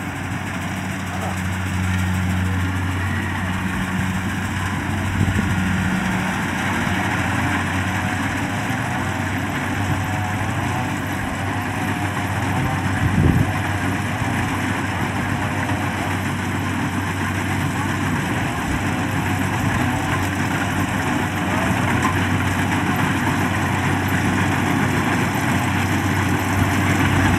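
Kubota DC-70 combine harvester's diesel engine running steadily while it harvests rice. A single sharp knock comes about halfway through.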